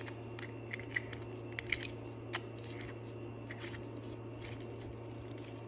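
Small clicks and light scrapes of a watch's screw-down case back being handled and threaded onto the case, several sharp ticks in the first couple of seconds, then fainter ones.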